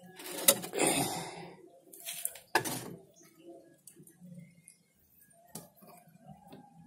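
Knocks and rustling from handling a wooden rabbit hutch: two sharp wooden knocks, about half a second and two and a half seconds in, each with a brief scrape, then lighter clicks.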